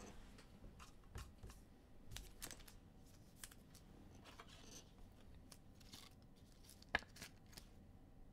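Faint handling of trading cards: soft sliding and scraping of cards against each other, with scattered light clicks and one sharper click about seven seconds in.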